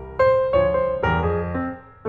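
Background piano music, with notes and chords struck a few times a second.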